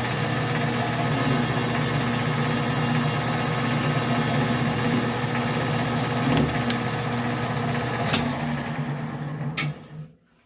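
Metal lathe running at about 190 RPM, a steady motor and gear hum with a few sharp clicks from the work. It is switched off near the end and stops.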